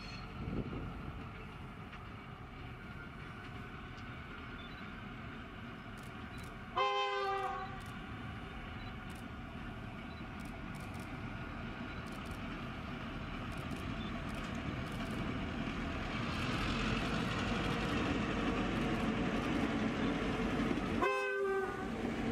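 Two Victorian Railways T class diesel-electric locomotives approaching at the head of a passenger train, their engines growing louder as they near. The lead locomotive sounds a several-note horn about seven seconds in, and gives another short blast near the end.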